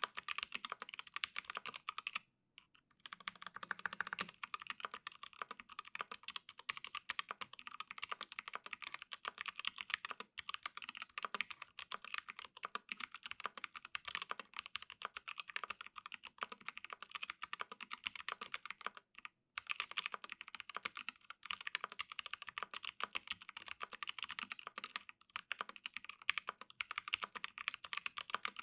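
Acrylic Alice-layout mechanical keyboard with lubed T1 switches, an acrylic half plate and PBT keycaps, typed on in a fast, continuous stream of key clacks. The typing pauses briefly about two seconds in and again about two-thirds of the way through.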